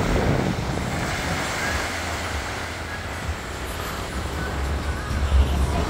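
Small waves washing onto a sandy shore, with wind buffeting the microphone as an uneven low rumble that grows stronger near the end.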